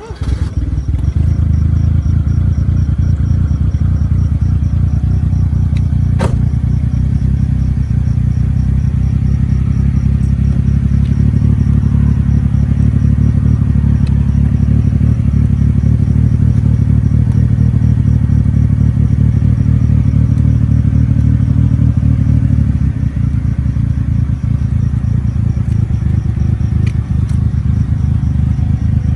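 Turbocharged Perodua Kancil driving on the road, its engine and road noise a loud, steady low rumble that eases slightly about 23 seconds in.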